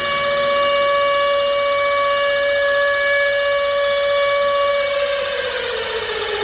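Civil defense siren sounding a steady tone, then starting to wind down, its pitch falling from about five seconds in.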